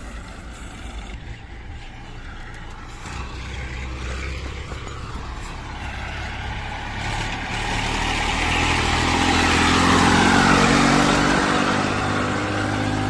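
Massey Ferguson 1035 tractor's diesel engine running as it pulls a loaded trolley, growing steadily louder from about seven seconds in as it passes close by.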